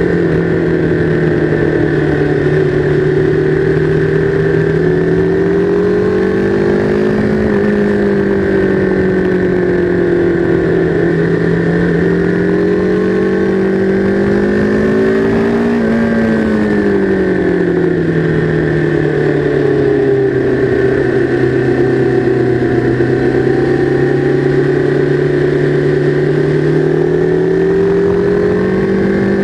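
Motorcycle engine running hard at speed, heard onboard, held in one gear. Its pitch climbs slowly to peaks about seven and sixteen seconds in, falls back after each, and starts climbing again near the end.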